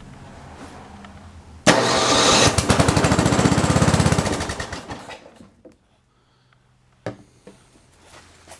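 Tecumseh engine of an old MTD Yard Man snow blower firing up on starting fluid with no gas in the tank: it catches suddenly, runs with a fast, even beat for about three seconds, then dies away as the fluid is used up. A single sharp click follows near the end.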